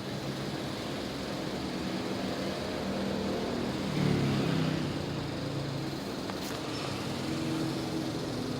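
Indoor unit of a Daikin FTNE25MV14 1 PK split air conditioner running with a steady, vibrating hum. About four seconds in the hum swells louder and wavers for a moment.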